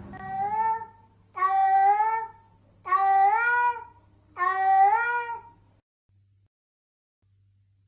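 A cat meowing four times, evenly spaced, each call about a second long, rising slightly in pitch and then holding. The first meow is shorter and softer than the other three.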